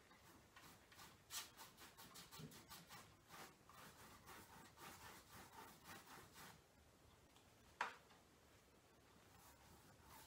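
Faint, quick back-and-forth strokes of a paintbrush rubbing acrylic paint across a stretched canvas as the colours are blended. The strokes stop about two-thirds of the way through, and a single sharp click follows about eight seconds in.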